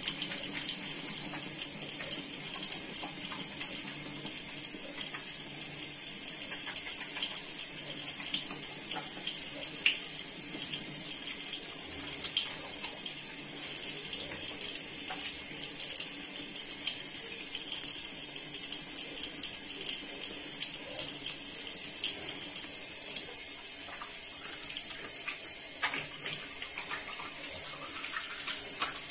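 Water running steadily from a bathroom sink tap into the basin, with irregular small splashes as hands are rubbed and rinsed under the stream.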